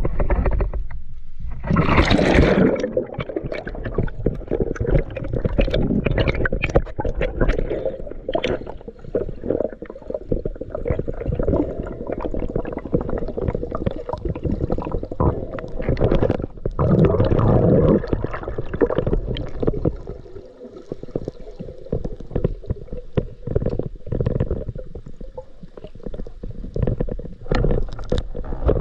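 Muffled underwater gurgling and bubbling with many small clicks and crackles, as heard by a camera in the water on a spearfishing dive. There is a splashy burst about two seconds in and a louder swell of water noise around the middle.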